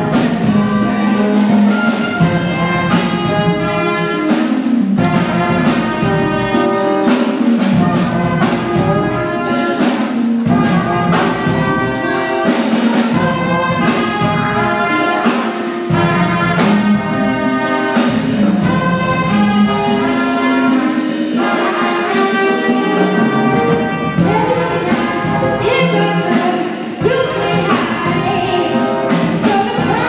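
Live brass band music: trumpets and trombone playing a tune together over a drum kit keeping a steady beat.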